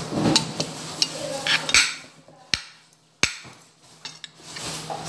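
Spoon and fork clinking and scraping against a plate while eating, in scattered sharp clinks; two of the sharpest come about two and a half and three and a quarter seconds in.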